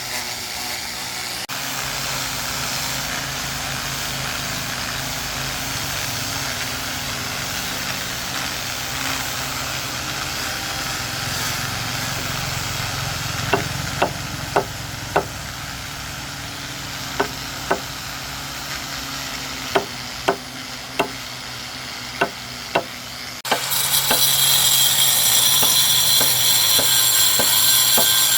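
Woodworking on a tree trunk: a steady scraping noise, then groups of sharp knocks, two to four at a time. About 23 seconds in, a power tool starts up with a high whine that keeps going to the end.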